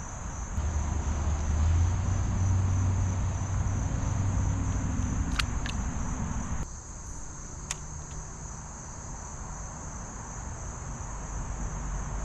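A steady, high insect drone of crickets, with a low rumble under it for the first half that stops suddenly, and a few faint clicks.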